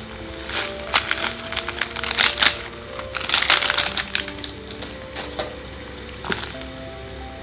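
Plastic ramen seasoning sachets crinkling and crackling as they are handled and emptied into the pot, in a run of sharp crackles loudest from about one to four seconds in.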